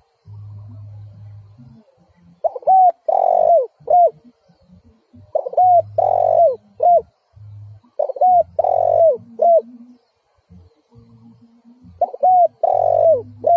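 Spotted dove cooing: four phrases of three notes, short, long and short, about every three seconds.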